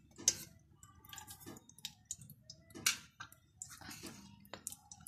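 Chopped garlic in a little hot oil in a pan, giving faint, irregular ticks and small pops, two of them louder, about a third of a second in and near the middle.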